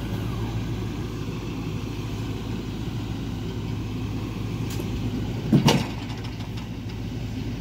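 A truck engine idles steadily under the whole stretch. A loud, sharp knock lands twice in quick succession about five and a half seconds in.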